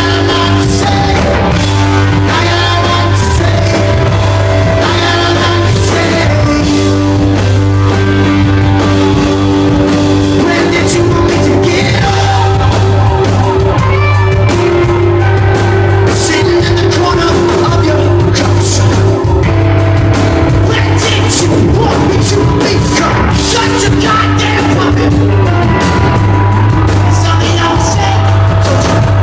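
A rock band playing live, loud and unbroken, with a heavy bass line and drum and cymbal hits throughout; a voice sings at times.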